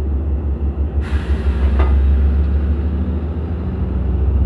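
Diesel locomotive engine running with a steady low hum during shunting, with a sudden burst of noise about a second in that fades over a second or so.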